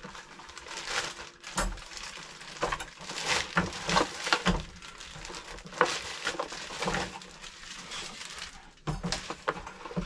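Protective packaging rustling and crinkling as a folded dog gate is unwrapped, with frequent light clicks and knocks from handling the gate's parts.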